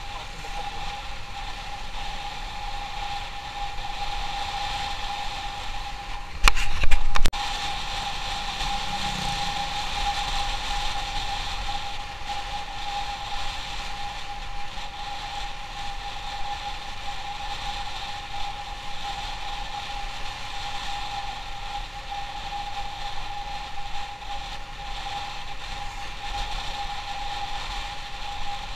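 Motorcycle riding along at a steady speed, its engine running with a steady whine over road and wind noise. About six and a half seconds in comes a loud burst of knocks, under a second long.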